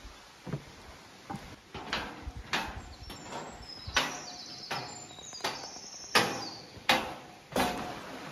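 A hiker's steps on the rocky trail: a regular series of sharp knocks about every 0.7 seconds, louder in the second half, several with a short high ring.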